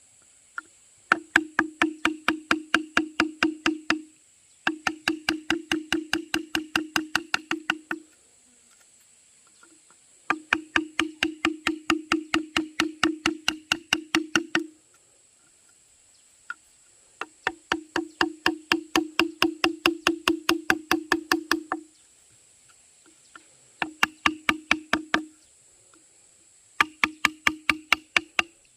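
Fast, even knocking on wood or bamboo, about seven strikes a second, with a ringing tone under each run. The knocking comes in six runs of one to four seconds, with short pauses between them.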